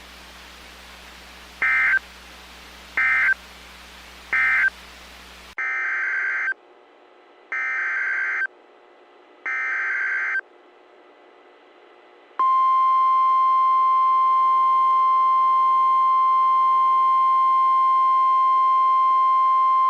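Emergency Alert System data bursts from NOAA Weather Radio. First come three short screeching end-of-message bursts. After a cut come three longer, roughly one-second SAME header bursts announcing the next warning. About twelve seconds in, the steady, loud 1050 Hz weather radio warning alarm tone starts and holds.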